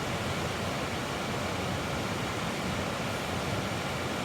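Steady rushing of a creek's flowing water, an even hiss with no breaks.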